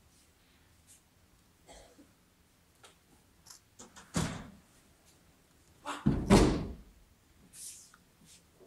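Bodies hitting judo mats in aikido breakfalls: a heavy thud about four seconds in and two more close together around six seconds. Light taps and rustling of feet and cloth on the mat come in between.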